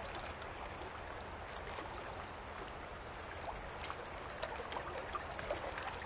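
Low, steady rush of flowing stream water, with a few faint ticks scattered through it.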